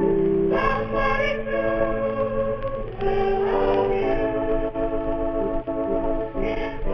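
Organ music with singing: an electric organ holding sustained chords under a wavering sung melody, heard with the thin, narrow sound of an old record.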